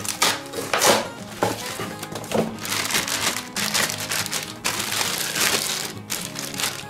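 Clear plastic wrapping crinkling and a cardboard box rustling as a packed part is pulled out and handled, in irregular bursts, over steady background music.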